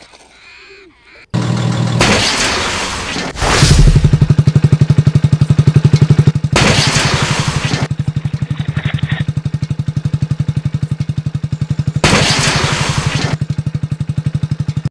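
A small engine chugging with a fast, even putter and a steady low note, starting abruptly about a second and a half in. It swells louder with a hissing rush three times.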